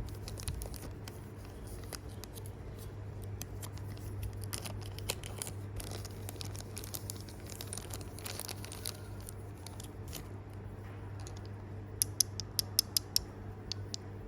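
Hands handling small plastic packaging of miniature toys, with soft rustling and small ticks, then a quick run of sharp clicks near the end, over a steady low hum.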